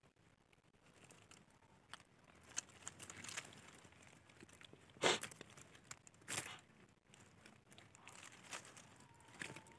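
Dry leaf litter and soil rustling and crackling under a hand as it sets eggs down in a ground nest, with two louder crunches about five and six and a half seconds in.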